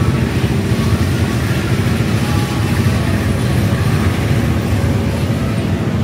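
Steady, loud low rumble of fairground rides and machinery running, with faint music underneath.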